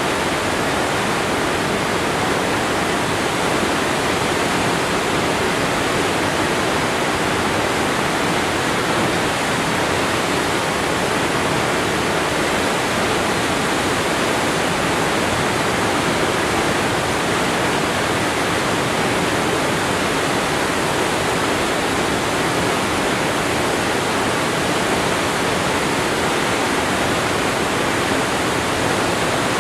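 Waterfall roaring: a steady, unbroken rush of falling water, full across low and high pitches.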